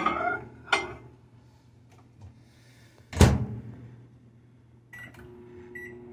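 A ceramic mug clinks onto a microwave oven's glass turntable, and the microwave door slams shut about three seconds in. Near the end come a few short keypad beeps, and the microwave starts running with a steady low hum.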